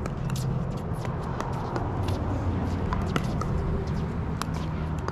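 Pickleball paddles hitting the plastic ball: sharp pops at irregular intervals from the rally and the neighbouring courts, over a steady low rumble.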